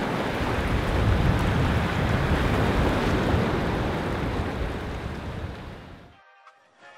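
Wind rumbling on the microphone over surf washing against the rocks of a jetty. The sound fades out about six seconds in.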